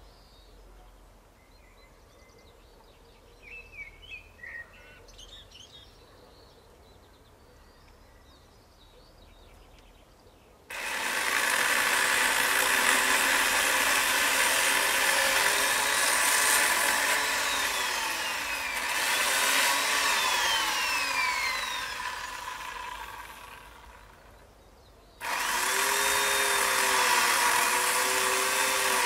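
Faint bird chirps, then a chainsaw starts up suddenly about a third of the way in and runs at full power, its pitch falling and rising as it cuts into the tree. It dies down, then starts again abruptly near the end.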